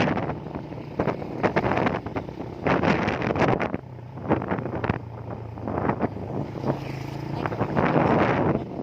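Motorcycle engine running steadily while riding, with wind buffeting the microphone in repeated gusts.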